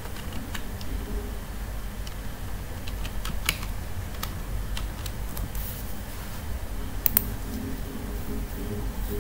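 Typing on a computer keyboard: scattered key clicks at an uneven pace, with a couple of sharper clicks about three and a half and seven seconds in, over a low steady hum.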